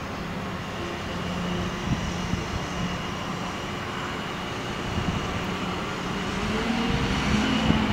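Diesel engines of a mobile crane and a utility bucket truck running steadily, with a faint steady high whine above them.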